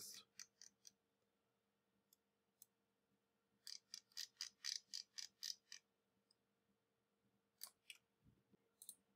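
Faint computer mouse clicking: a few single clicks, then a quick run of about a dozen clicks lasting about two seconds, and two more single clicks near the end.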